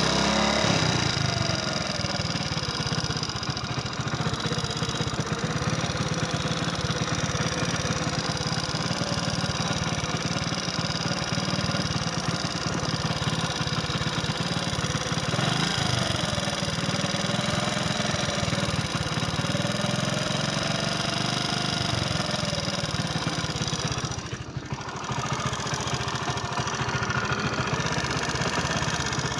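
Hero Splendor motorcycle's single-cylinder four-stroke engine running steadily at idle, with a faint wavering whine over the firing beat. Its owner presents this as a problem noise. The sound drops briefly about five seconds before the end.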